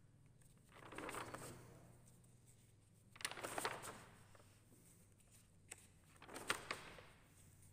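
Paper pages of a drawing notebook being turned: three soft rustles with small clicks, about a second in, midway, and near the end.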